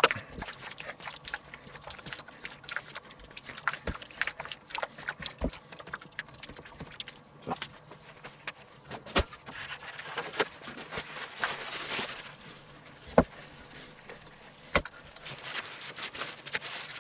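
Wet squelching of a gloved hand kneading meat chunks through a thick yogurt marinade in a stainless steel bowl, with scattered sharp clicks and knocks of handling; the loudest knock comes about thirteen seconds in.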